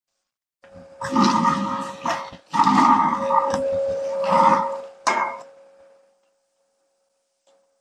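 Stainless-steel tripod legs scraping and grinding against the clamps of the wheeled base in several rough strokes, the steel tube ringing on a steady tone that fades out after the scraping stops.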